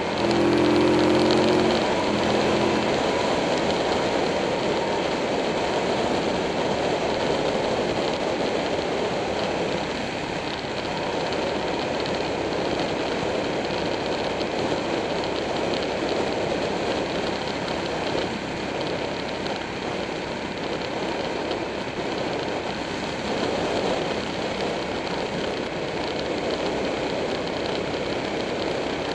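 Buell 1125R's V-twin engine running at road speed, mixed with steady wind and road rush on the microphone. The engine's pitched drone stands out for the first two seconds or so, then sinks mostly under the steady rushing noise.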